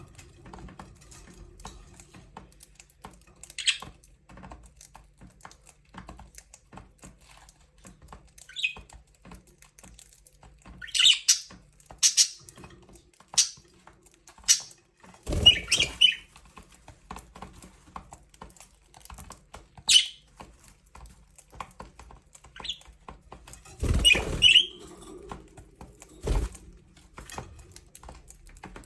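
Budgerigars chirping in short, scattered high calls over a steady sprinkling of small clicks and taps. Two louder bursts, about halfway through and again near three quarters of the way in, each a thump mixed with chirps.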